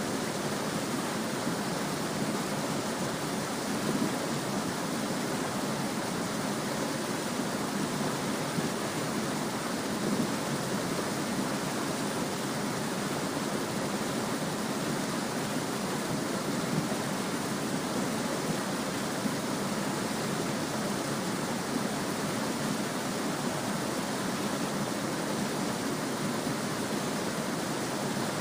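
Small stream babbling and trickling steadily over stones, an even rushing wash with small splashes flickering through it.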